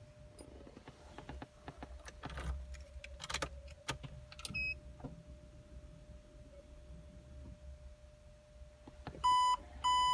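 Keys jangling with scattered clicks and knocks, as someone handles keys at the car before starting it. About halfway through there is a short high beep, and near the end two louder, half-second electronic beeps from the car.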